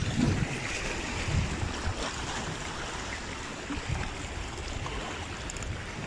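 Sea waves washing against a rock breakwater, with wind rumbling unevenly on the phone's microphone.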